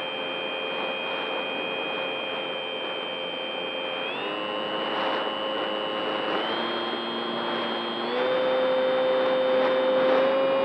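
Onboard sound of a radio-controlled model Spitfire in flight: a steady high motor whine with a rush of air. The whine shifts pitch in small steps about four, six and a half and eight seconds in, and grows louder at the last step.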